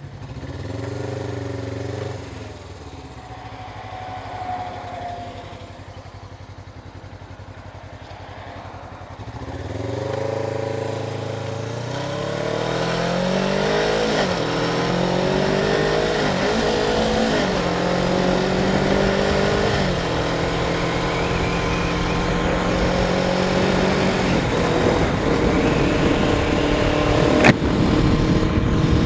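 Suzuki GS500F's parallel-twin engine pulling away and accelerating up through the gears: its pitch climbs and then drops at each upshift before it settles into a steady cruise. Wind noise on the helmet camera builds as speed rises, and there is one sharp click near the end.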